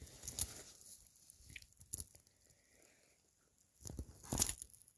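Scattered crunching and crackling of ice and snow, quiet in the middle, with a louder burst of crunching about four seconds in.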